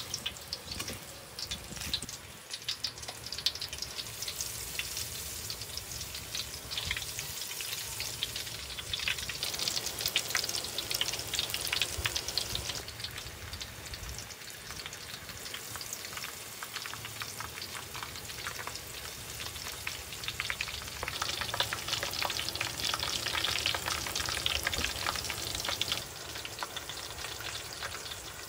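Crumb-coated eggplant fans deep-frying in a wok of hot oil, sizzling and crackling steadily; the sizzle swells louder at times.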